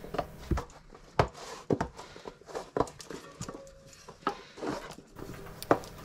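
Light, irregular knocks and clicks, about ten of them, from hands working a mountain bike tyre and wheel.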